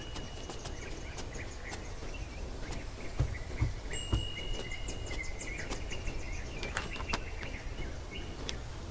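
Outdoor garden ambience: birds chirping, with thin held high whistles and quick faint ticks over a steady background hiss. A few soft low thumps come about midway.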